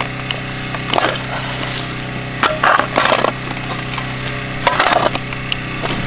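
A steel spade stabbing into hard, rocky soil and scooping out loose dirt and rock chunks: several crunching, scraping strikes with stones rattling, over a steady low hum.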